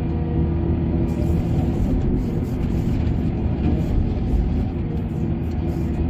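Heavy diesel earthmoving machinery running steadily with a deep, even drone, with a few faint clatters over it.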